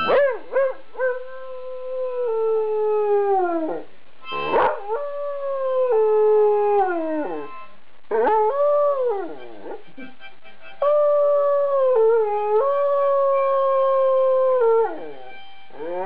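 Afghan Hound howling along to a harmonica: four long howls, each held and then sliding down in pitch at the end, the last the longest. Faint steady harmonica notes sound beneath.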